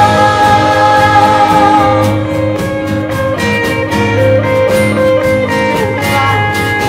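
Live worship band playing a gospel-style song on guitars, stage piano and drums, with a held sung note that ends about two seconds in while the band plays on.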